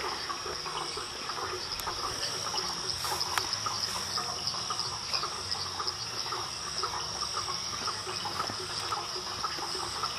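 Jungle insect chorus: a steady high-pitched trill with many short chirps and ticks lower down, dense and unbroken.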